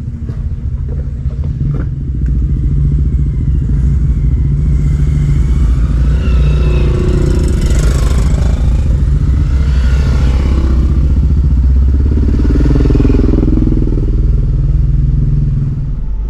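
Dirt bikes and a quad riding past one after another, their engines rising and falling in pitch as each goes by, loudest in two waves mid-way. Underneath is the steady low idle of a stopped 4x4.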